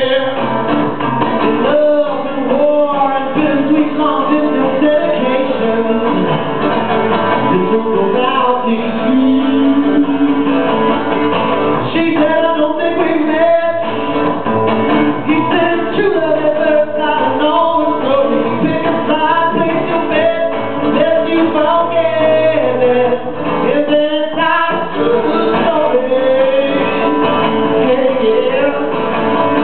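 A man singing live while playing an acoustic guitar: a singer-songwriter's song performed solo on voice and guitar.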